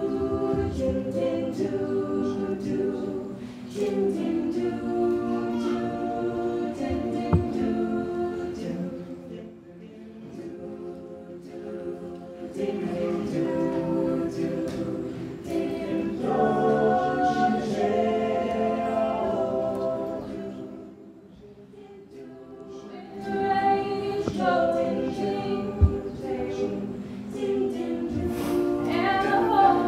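A choir singing in long held chords, phrase after phrase, with the sound falling away twice between phrases.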